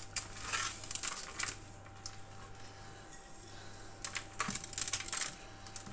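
Hands rubbing coarse aromatic salt with rosemary and grated citrus zest over the skin of a raw duck in an aluminium roasting tray: soft crackling and scratching in two spells, at the start and again about four seconds in.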